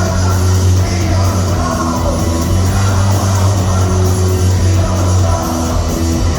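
A rock band playing loud and steady at a live concert, with a heavy, sustained bass line and a voice singing over it.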